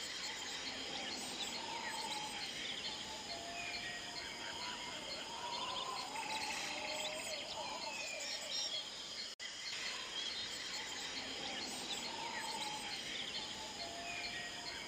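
A soundscape of many birds chirping and whistling over a steady insect drone. The sound cuts out for an instant about nine seconds in.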